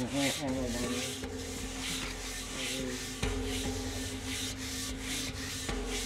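A huge iron temple gong being rubbed by hand at its centre in even strokes, about two to three a second, drawing a steady low humming tone from the metal.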